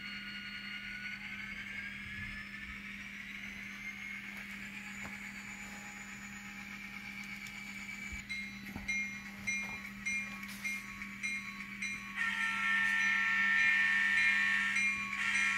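ESU LokSound V5 sound decoder playing an EMD 16-cylinder 645 turbo prime mover through the small speaker of an N scale SD40-2 model as it starts off. A turbo whine rises in pitch over the first few seconds, then the horn sounds in the second half, loudest and held near the end.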